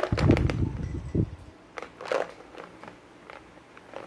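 Handling noise from a collagen supplement bottle being picked up and turned over. A loud, dull thumping and rustling burst lasts just over a second, then a few scattered clicks and knocks follow.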